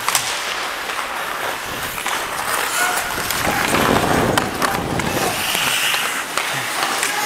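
Ice hockey skate blades scraping and carving on rink ice, louder for a second or so in the middle, with a few short sharp knocks.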